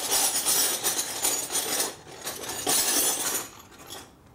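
Small metal parts clinking and rattling against each other in two spells, the first about two seconds long and the second about one second.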